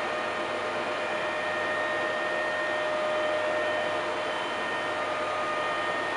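Deckel FP 4 NC milling machine running, a steady whir with a constant whine on top.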